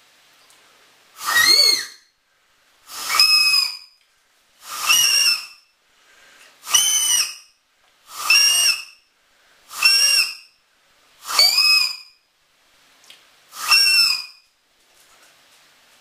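A blade of grass stretched between the thumbs and blown as a bird lure (appeau), giving eight loud, shrill, reedy squawks about every one and a half to two seconds.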